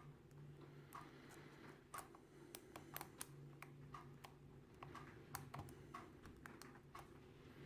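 Faint, irregular light clicks of a small hook pick probing the pin stack of a cheap brass pin-tumbler padlock held under tension, feeling for the binding pin. A low steady hum sits underneath.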